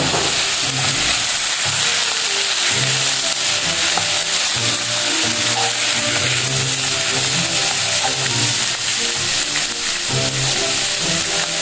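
Pork belly and salted mustard greens sizzling as they stir-fry in a nonstick pan, turned over with a spatula, with soft background music underneath.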